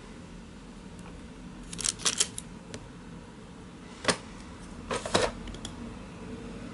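Sharp clicks and taps of a tool on a hard work surface while polymer clay squares are cut and handled: a quick run of several clicks about two seconds in, a single click near four seconds, and another short run around five seconds.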